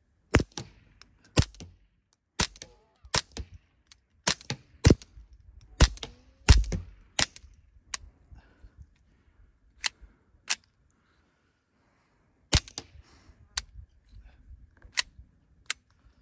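Suppressed .22 LR pistol, a Ruger Mark IV 22/45 with a Little Spoon silencer, firing CCI Quiet subsonic rounds. About fifteen sharp cracks come mostly about a second apart, with two short pauses partway through.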